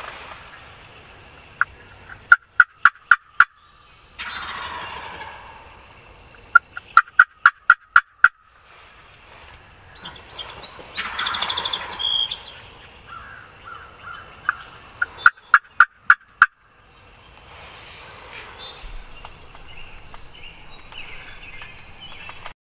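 Wild turkey toms gobbling loudly and close by: three rattling gobbles about a second long each, with a longer, noisier sound between them about ten seconds in.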